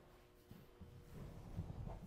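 Faint knocks and rustling as the leg section of a segmented chiropractic table is handled, growing a little louder in the second second, over a faint steady hum.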